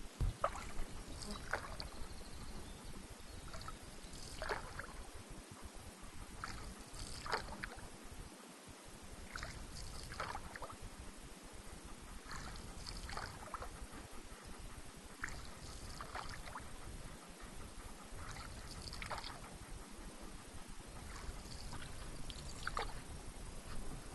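Canoe paddle strokes in lake water: repeated soft splashes and drips every second or two as the paddle dips and lifts.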